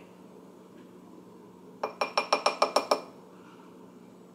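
A quick run of about eight light clinking taps over about a second, a slotted spoon holding an egg yolk tapped against a ceramic ramekin to shake the egg white through the slots.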